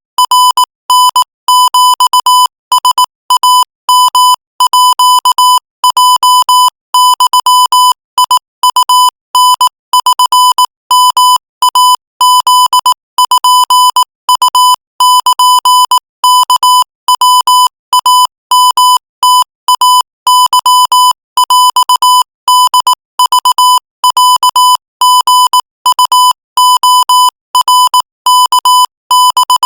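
Morse code at 22 words per minute: a single steady beep of about 1 kHz keyed on and off in rapid short and long pulses (dots and dashes), a continuous stream with brief gaps between characters.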